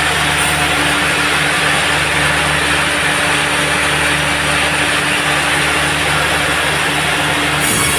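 Sawmill machinery running steadily: an engine drone under a constant loud hiss, with a shift in the sound just before the end.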